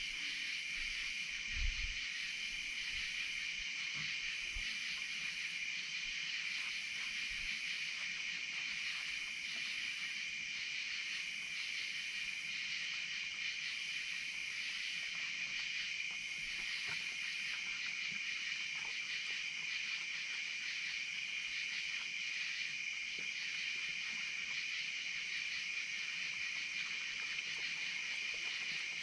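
Night insects, crickets or katydids, in a steady shrill chorus, with a higher buzzing call that comes and goes every second or two and stops about two-thirds of the way through. A couple of low knocks near the start.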